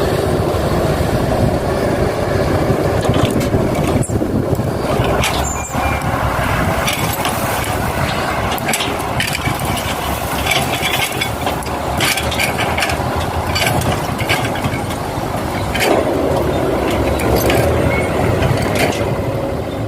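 Excavator running steadily while loading soil into a dump truck, with frequent sharp clanks and knocks through the work.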